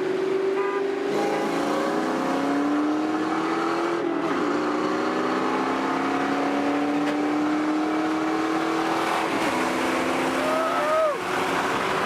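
Ford Mustang V8 accelerating hard through the gears in a roll race: the engine pitch climbs steadily and drops sharply at each upshift, about three times.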